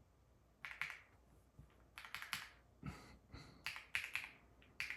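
Typing on a KiiBOOM Loop 65 mechanical keyboard with a full aluminium body: keystrokes in several short bursts with brief pauses between.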